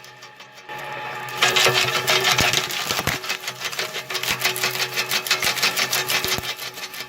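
A wood-processing machine running with a fast, even clatter and a steady hum, growing louder about a second and a half in, with faint background music underneath.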